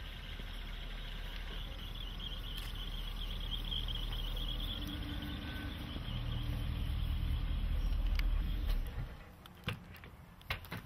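A large saloon car rolling up slowly and stopping, its low engine and tyre rumble growing louder until it drops away suddenly about nine seconds in. A few short sharp clicks near the end, the car's door handle and latch being worked.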